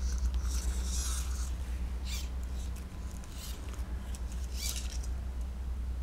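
Ecoflex silicone skin and its fabric cover squeaking and rubbing against each other and the robot arm as they are stretched and squeezed by hand, in several short scrapes over a steady low hum.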